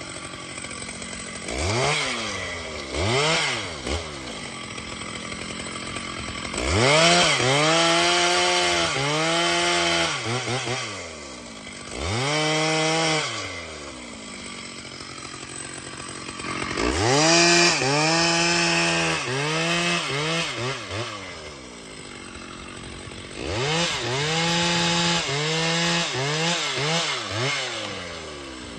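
Chainsaw engine revved up again and again, its pitch rising and falling with the throttle in four loud spells of a few seconds each, dropping back to idle in between.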